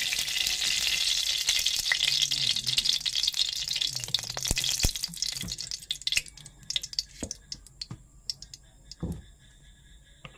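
Cooking oil sizzling in a hot aluminium wok: a dense hiss for about the first six seconds that thins out into scattered crackles and pops.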